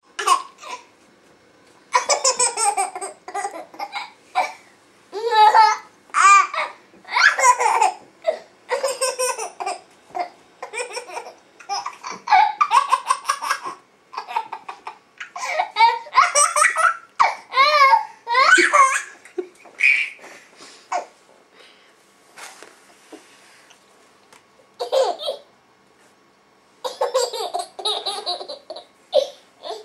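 A baby of about nine months laughing in repeated bouts of belly laughs with short breaths between. A longer, mostly quiet stretch falls a little past the middle, broken by one short laugh.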